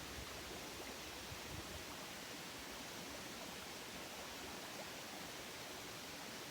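A river flowing, an even, steady rushing of water.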